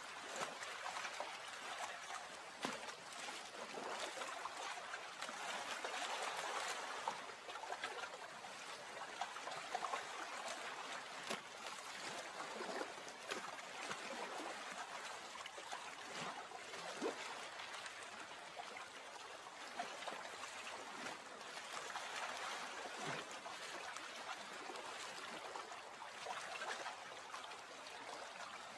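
Gentle running water: a steady trickling wash dotted with many small splashes and drops.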